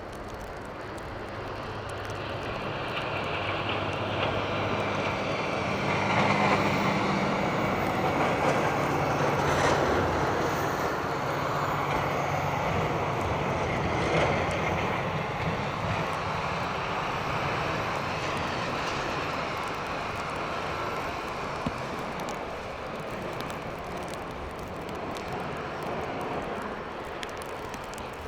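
A heavy motor vehicle passing in the street, its low engine sound swelling over several seconds and then slowly fading.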